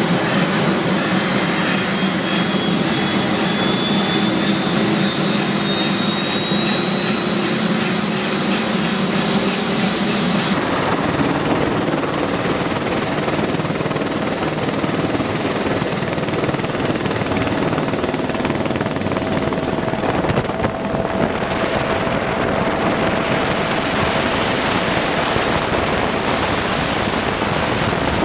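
Helicopter turbine engine and rotor heard on board during lift-off: a loud, steady din with a high whine that slowly rises in pitch as the engine spools up. About ten seconds in the sound changes abruptly and the low hum drops away.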